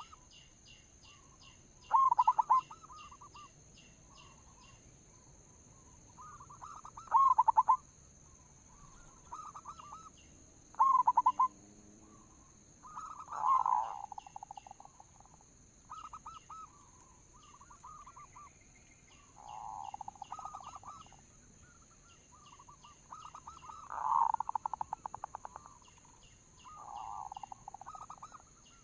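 Zebra doves (perkutut) cooing: rapid trilled coo phrases repeated every one to three seconds, some loud and close, others fainter, as from more than one bird. Small birds chirp high in the background.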